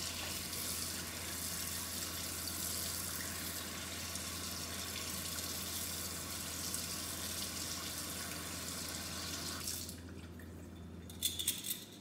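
Water running from a sink tap over a belt buckle, rinsing off a Bar Keepers Friend paste. The tap stops about ten seconds in, followed by a few light clicks.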